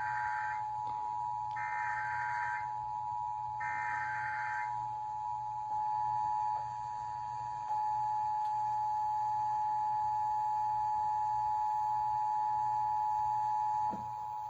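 Emergency Alert System attention signal: a steady two-tone alarm held for about fourteen seconds. In the first five seconds three one-second bursts of warbling digital data tones (the SAME header code) overlap it. The alarm tone cuts off near the end.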